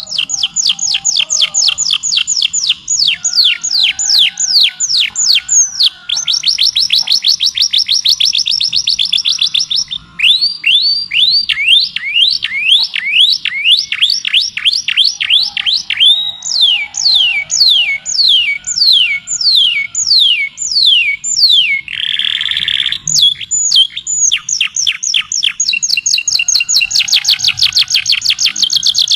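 A songbird singing in long runs of rapid repeated whistled notes, each sweeping down in pitch, about eight a second, switching to a new note type every few seconds. About three-quarters in there is one short harsh note.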